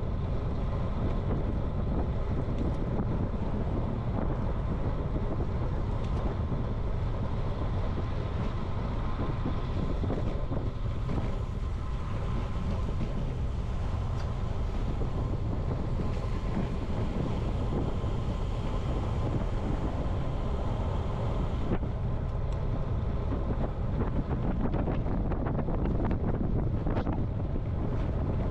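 Steady wind rush on the microphone of a camera riding on a moving road bicycle, with tyre and road noise underneath. A few faint clicks near the end.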